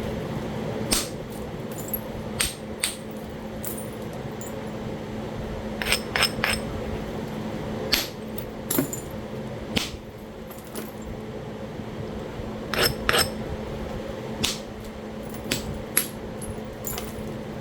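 Flintknapping: sharp, ringing strikes of a percussor on the edge of a Talahata quartzite biface as flakes are knocked off. The strikes come irregularly, about one a second, some in quick pairs, over a steady low hum.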